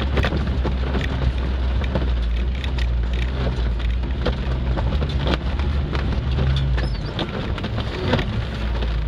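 Cabin sound of a 1992 Suzuki Sierra crawling over rough off-road ground: the engine runs with a steady low drone under a dense scatter of clicks and knocks from the body rattling and the jolting over the track.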